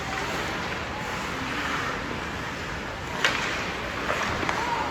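Steady noisy background ambience of a game, with one sharp knock about three seconds in and a few faint short squeaks near the end.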